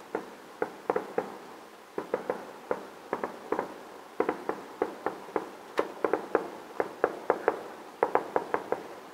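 Distant fireworks shells bursting in a rapid finale barrage: sharp bangs, several a second and irregularly spaced, each trailing off in a short echo.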